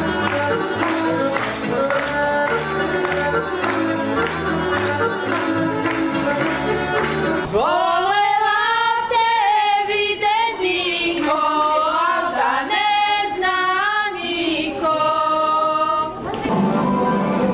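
Folk dance music with a steady quick beat. About seven seconds in the instruments stop and a group of women sing together unaccompanied, in long, bending sung lines. The instrumental music comes back in near the end.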